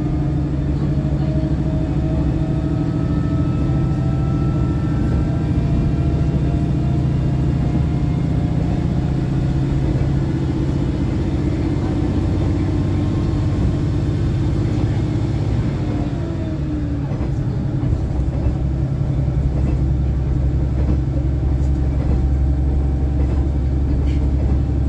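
Inside the cabin of a KiHa 110 series diesel railcar running along the line: a steady low drone of the diesel engine and wheels on rails, with faint whining tones that glide slowly in pitch.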